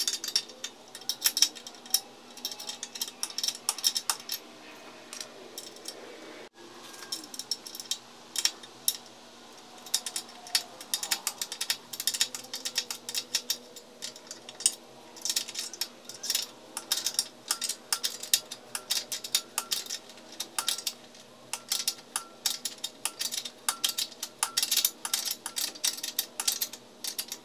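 A wrench turning the nut on the ball-joint stud of a BMW E46 front control arm, making quick runs of metal clicks. The runs pause briefly about six seconds in.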